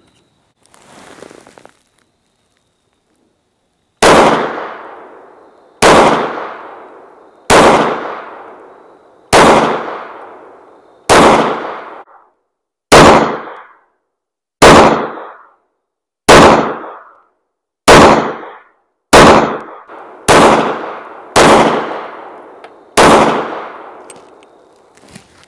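Thirteen shots from an IWI Masada Slim 9mm micro-compact pistol, fired one at a time about every one and a half to two seconds and a little faster near the end, each followed by a fading ring: one full 13-round magazine emptied. A faint short noise comes about a second in, before the first shot.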